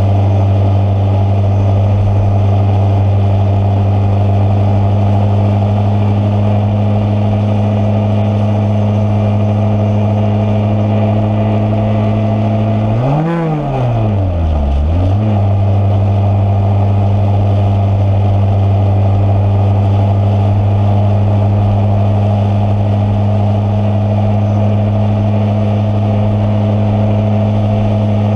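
Engine running steadily at constant revs. About halfway through, the revs drop sharply and climb back up over about two seconds, then hold steady again.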